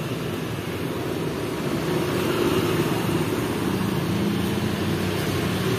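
Street traffic: motorbike and scooter engines running past, a steady mix of engine hum and road noise.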